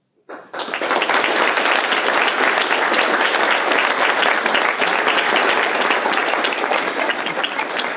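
Lecture audience applauding: dense, steady clapping from many hands that starts abruptly about a third of a second in, at the end of a talk.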